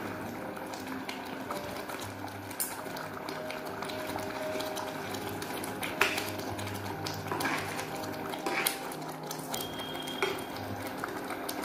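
Steel spatula scraping and clinking against a steel kadhai as a thick, grainy, sweetened milk-cake mixture is stirred constantly over the heat, with sharp clinks several times, the loudest about 6 seconds in.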